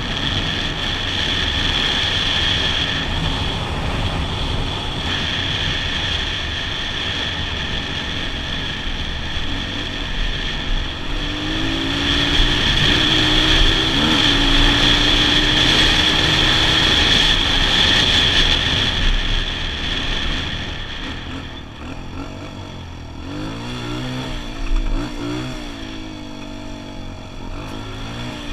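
Kawasaki KLX125 dirt bike's single-cylinder four-stroke engine running under way. After about twenty seconds it gets quieter and the revs rise and fall repeatedly as the bike slows onto dirt.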